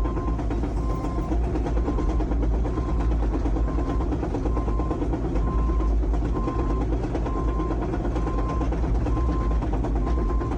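Diesel engine of an earthmoving machine running steadily under load, with a warning beeper sounding a short, even beep about once a second.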